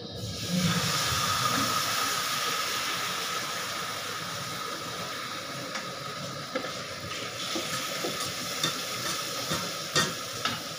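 A mixture poured into hot oil in a wide pan sizzles, the hiss starting about half a second in and slowly dying down. In the second half a wooden spatula scrapes and taps against the pan a few times.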